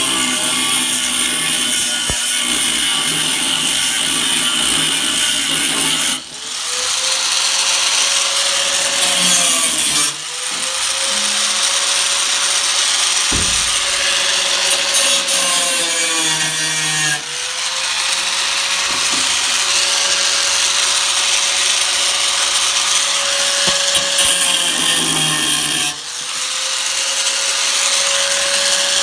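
Handheld electric grinder working the rear quarter panel's sheet metal, running continuously with a steady high whine. About four times the tool eases off and its pitch sags briefly before picking up again.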